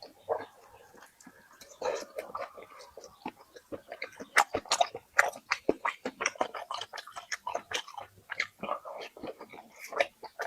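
A person chewing and biting food close to the microphone: a run of short wet smacking and crunching clicks, sparse at first and coming thick and fast from about four seconds in.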